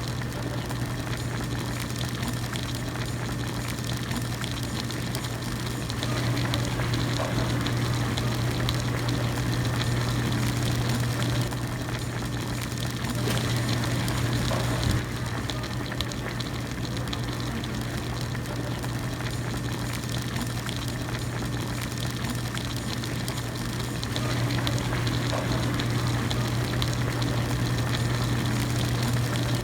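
Hot pot broth at a steady rolling boil, a continuous bubbling wash over a low hum. The hum and the bubbling swell louder for several seconds twice, then settle back.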